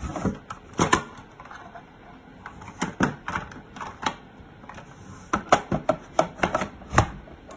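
Hard plastic clicks and knocks from a capsule coffee machine's parts being handled: a few scattered strikes, then a quick run of clicks and a final loud knock near the end.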